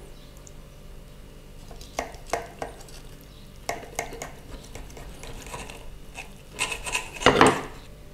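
Knife and fork cutting through a crispy panko-crumbed chicken breast on a ceramic plate: scattered clicks and crunches of the crust and of cutlery touching the plate, with a louder run of crunching and scraping near the end as the knife goes through.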